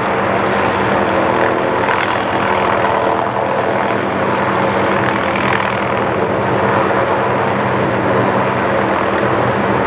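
Helicopter running steadily overhead, its rotor and engine a constant, unchanging drone with a steady hum.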